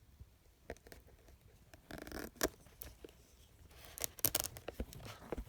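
Hands working at packaging: scattered clicks and scrapes, a short rustling tear about two seconds in, and a quick run of clicks near the end.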